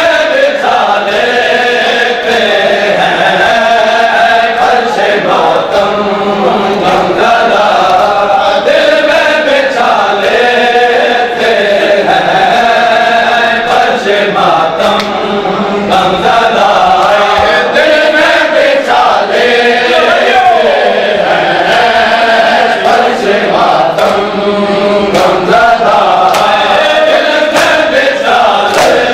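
Many men chanting a nauha, a Shia mourning lament, together in a loud unison chant, with sharp slaps of hands on bare chests breaking through the voices.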